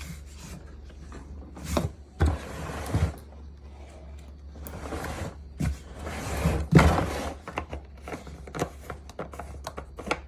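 Handling noise as parts of a Ridgid wet/dry shop vacuum are fitted together: irregular knocks, clicks and scraping, with two longer stretches of rubbing and rustling, one about two seconds in and one about six seconds in.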